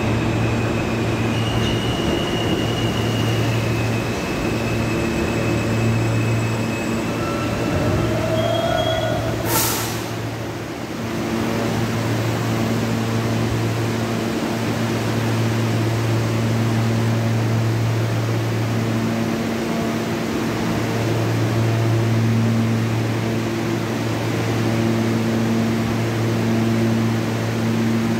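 R160B Siemens subway car running with a steady rumble and pulsing low hum, faint high whining tones in the first few seconds that fade out. A single sharp knock comes about nine and a half seconds in, followed by a brief dip in the noise.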